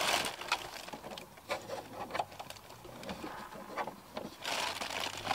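Handling noise from a small GPS antenna module and its cable being fitted by hand behind a car's dashboard cross-beam: irregular small clicks, taps and scrapes against plastic and metal, with a longer rustle near the end.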